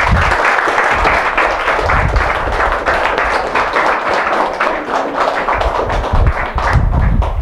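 An audience applauding: many hands clapping, steady throughout, stopping right at the end.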